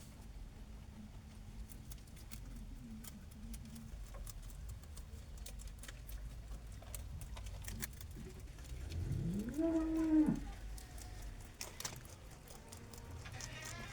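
A cow mooing once, a rising call held briefly before it stops, about nine seconds in, over low background rumble and a few small clicks.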